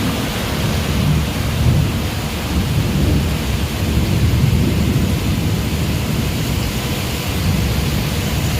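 Steady heavy rain with a continuous low rumbling underneath.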